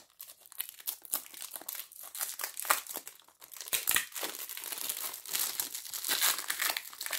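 Perfume box packaging crinkling and tearing as it is unwrapped by hand: an irregular run of crackles that keeps going through the whole struggle to get it open.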